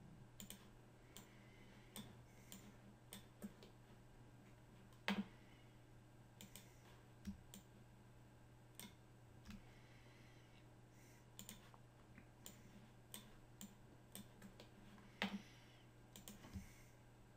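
Faint, scattered computer mouse clicks, irregularly spaced, with two louder clicks about five seconds in and near fifteen seconds, over a low steady hum.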